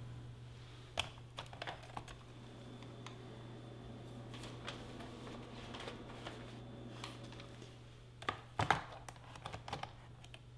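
Scattered light clicks and taps, with a small cluster of louder knocks near the end, over a steady low room hum.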